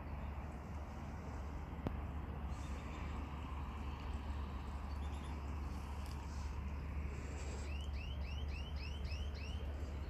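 A small songbird singing a run of about seven quick, identical notes, about three a second, near the end, over a steady low rumble.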